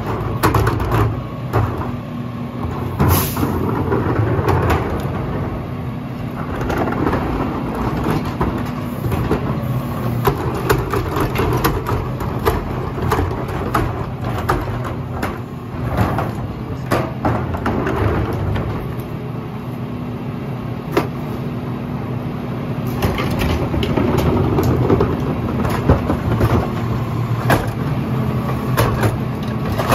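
Mack LR garbage truck with a McNeilus rear-loader body running steadily, with the hydraulic cart tipper dumping a recycling cart into the hopper. Many short knocks and clatters run throughout.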